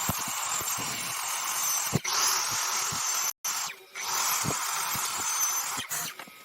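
Steady rasping hiss of a tool working wood, with scattered light knocks, cut off abruptly about three and a half seconds in and then resuming.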